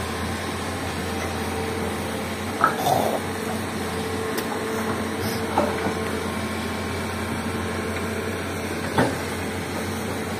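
Komatsu hydraulic excavator's diesel engine running steadily under load as it digs into rock and soil. A few sharp knocks sound as the bucket works the rock, three of them clearly: a few seconds in, midway and near the end.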